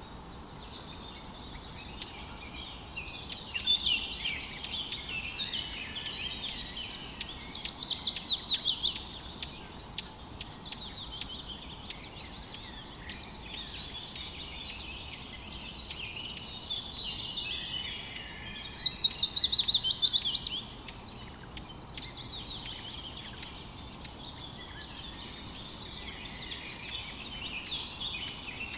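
Several songbirds singing together in a morning chorus, a steady mix of overlapping chirps and warbles over a faint hiss. Twice, a louder bird gives a rapid trill of about two seconds that drops in pitch.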